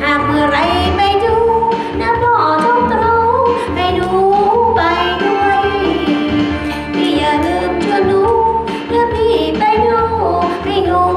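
A woman singing karaoke into a handheld microphone over a backing track, with a steady bass line underneath.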